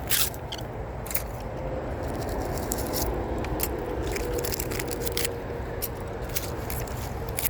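Tangled wires and nails being pulled off a neodymium fishing magnet by a gloved hand and dropped into a bucket: metal scraping, with scattered sharp clicks over a steady low background rumble.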